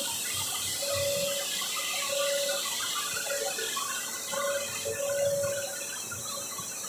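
Steady rushing hiss of water spraying inside the cooling tanks of a plastic pipe extrusion line, over machinery noise, with a mid-pitched tone that comes and goes every second or so.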